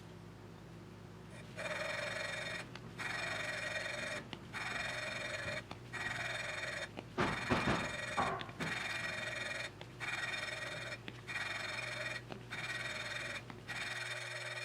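Intake valve being ground into its cylinder-head seat with lapping compound, in about ten repeated grinding strokes of roughly a second each with short pauses between. The grinding is meant to take out the last pitted spots left on the seat. A few louder knocks come about halfway through.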